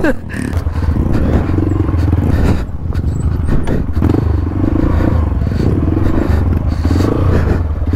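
Honda CRF trail bike engine running as it rides a muddy trail, the throttle opening and easing so the engine note rises and dips, with scattered knocks from the bike over rough ground.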